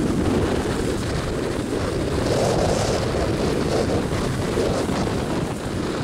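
Strong typhoon wind buffeting the built-in microphone of a compact camera: a steady low rumble with hiss that swells in a gust about two seconds in.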